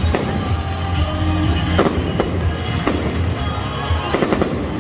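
Aerial fireworks bursting: scattered sharp bangs and crackles, then a quick cluster of several reports about four seconds in, over music playing throughout.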